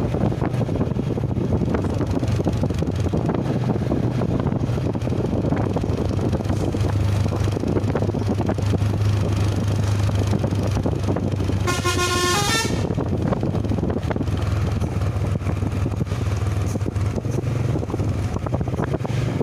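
Steady road and engine rumble, with a brief burst of a tour bus's 'telolet' multi-tone musical horn about twelve seconds in, lasting about a second and stepping through its notes.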